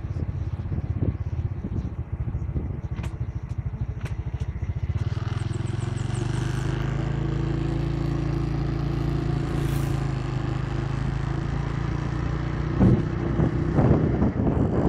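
Motorcycle engine running while riding along a road: a rapid low pulsing for the first five seconds or so, then a steady hum as it holds speed.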